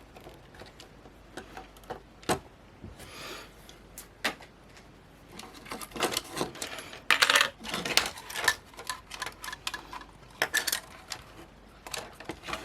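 Small plastic and metal camera parts clicking and clattering as they are handled and pried apart during a teardown. A short scrape comes about three seconds in, and a busier run of clicks and scraping comes past the middle.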